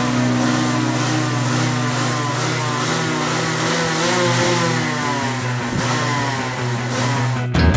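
Two-stroke kart engine running on the stand, revved up and down again and again.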